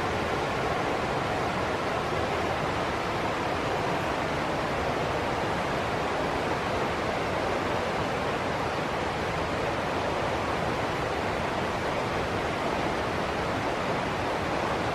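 River water rushing steadily, a continuous even hiss without breaks.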